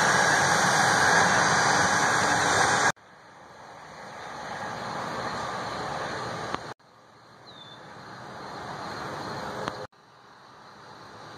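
Jet airliner engines running on the runway, a steady rush of noise, loud for about the first three seconds. The sound then cuts out abruptly and swells back, and this happens twice more, more quietly, as the jet moves away.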